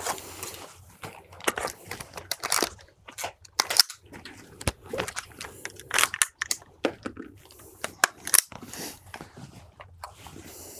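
Irregular metallic clicks and clacks of several AR-15-type rifles being unloaded and made safe: magazines coming out and actions being worked.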